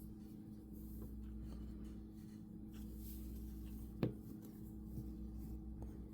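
Quiet tabletop handling of small objects over a steady low electrical hum, with one sharp tap about four seconds in.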